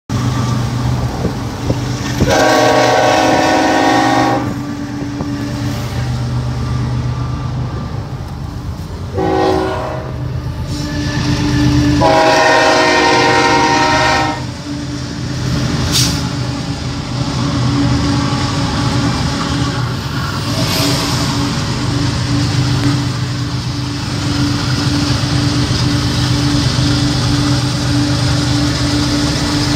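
BNSF diesel freight locomotive's air horn sounding three blasts, long, short, long, the kind of sequence blown approaching a grade crossing, over a steady low engine drone. Heard from inside a moving vehicle's cabin.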